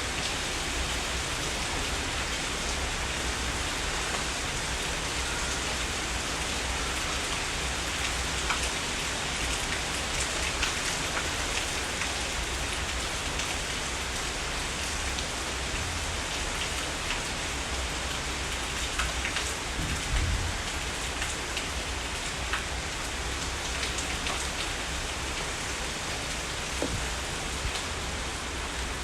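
Heavy rain falling steadily, a dense even hiss with scattered sharper drop hits. About two-thirds of the way in there is a brief low thump, the loudest moment.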